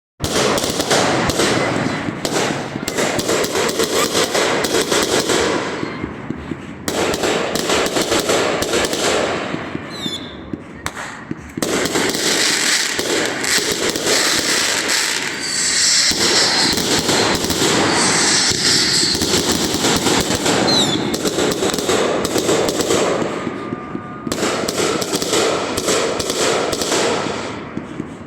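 A large multi-shot fireworks cake firing in a long, dense barrage of rapid bangs and crackling, with a couple of brief lulls and a few short whistles midway.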